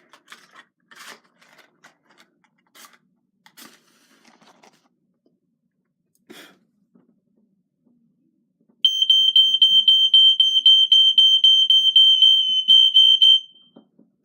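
Faint handling clicks and rustles, then, about nine seconds in, a household fire alarm's piezo sounder goes off: a loud, piercing high tone with a fast flutter that sounds for about four and a half seconds and then stops as the alarm is tested.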